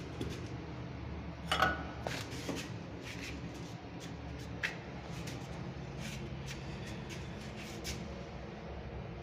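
Light clicks and knocks from a chrome wall-mounted bath mixer being handled during fitting, the loudest a short metallic clink about one and a half seconds in, over a steady low hum.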